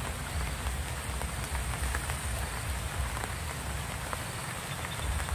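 Steady patter of rain, an even hiss of fine drops, over a low uneven rumble.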